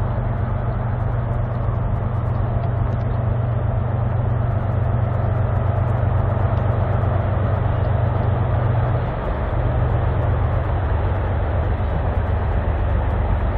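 Diesel freight locomotives running with a steady low engine drone, dipping briefly about nine seconds in.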